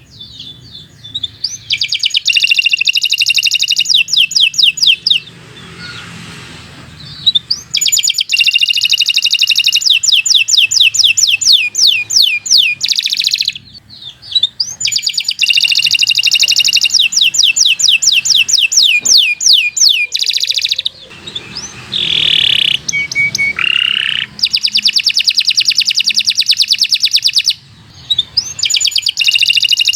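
Domestic canary in full, continuous song: long phrases of rapid trills, each run of repeated notes lasting several seconds, with short breaks between phrases.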